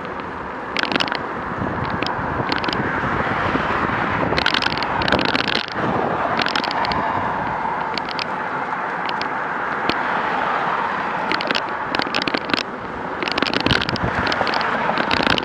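Steady rushing wind noise on the microphone of a moving action camera, broken by many irregular crackling clicks and knocks.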